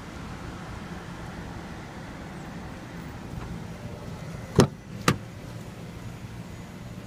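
Nissan Murano rear door being opened: two sharp clicks about half a second apart as the handle is pulled and the latch releases, over a steady low hum.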